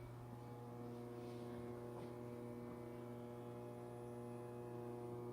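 Steady electrical hum from a Sierra Therm belt furnace running at temperature: a low, unchanging tone with a stack of overtones.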